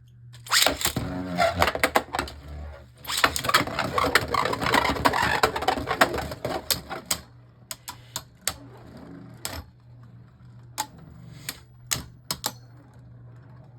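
Beyblade Burst spinning tops clashing in a plastic stadium: dense rapid clacking and rattling for about six seconds, then scattered single clicks as the collisions thin out.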